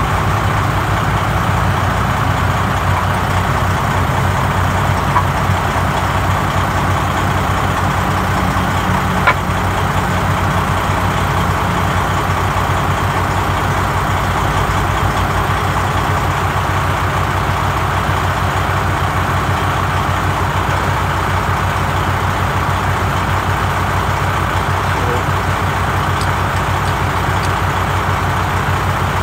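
Heavy diesel truck engine idling steadily, with a low, even hum throughout and a sharp click about nine seconds in.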